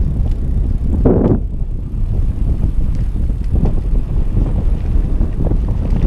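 Wind buffeting the microphone on a moving bicycle, a steady low rumble with small clicks and rattles from the ride, and one brief louder rush about a second in.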